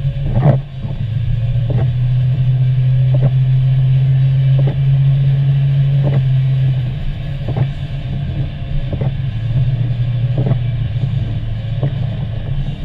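Car driving on a wet road in rain and sleet, heard from inside: a steady low road-and-engine drone, with a short soft stroke about every second and a half.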